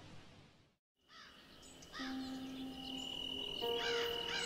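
Background music: one track fades out into about a quarter second of silence, then the next begins with held tones and layered bird calls. Near the end the calls repeat about twice a second.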